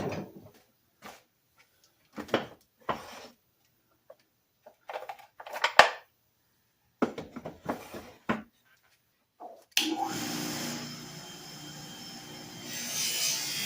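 Short strokes of fine sandpaper rubbing on a small cast anvil, in separate bursts with silent gaps between them. Background music starts about ten seconds in.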